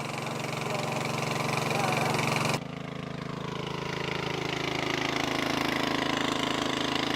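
Small petrol-engine water pump running steadily while it pumps a pond dry. The sound drops and changes abruptly about two and a half seconds in.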